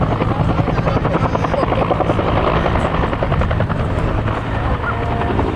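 Bell UH-1N Twin Huey helicopter flying, its two-bladed main rotor beating rapidly and steadily over the turbine hum.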